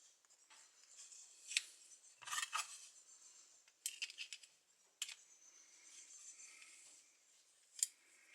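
Hand work on an old kitchen knife: short metallic scrapes with a few sharp clicks, the loudest about one and a half seconds in and near the end.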